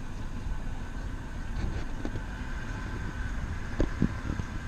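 Glass-bottom boat's engine running steadily with a low rumble and a faint steady whine. Two sharp knocks come close together about four seconds in.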